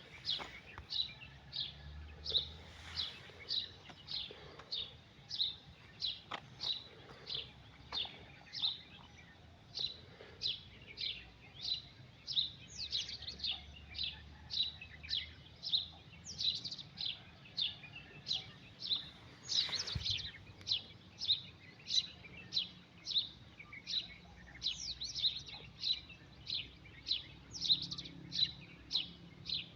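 A bird repeating a short, high, downward-sliding chirp at a steady pace, less than a second apart, with other birds chirping now and then over it.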